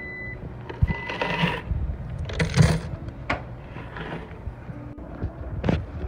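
Laundromat machines running with a low rumble, broken by irregular knocks, clicks and short bursts of metallic clatter; the loudest clatter comes about two and a half seconds in.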